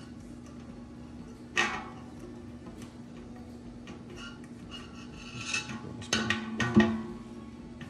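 Knocks and clinks of metal fittings against a stainless steel water filter chamber as a spigot and its gaskets are fitted by hand. There is a single knock about a second and a half in and a cluster near the end, the last the loudest, leaving the steel ringing briefly.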